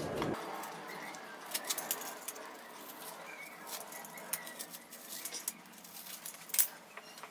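Hand peeler shaving strips of peel off a grapefruit, heard as scattered short scratches and clicks, with a sharper click near the end.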